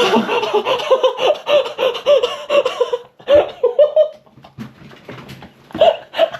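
A person laughing hard in quick repeated bursts for about three seconds, then a few shorter laughs.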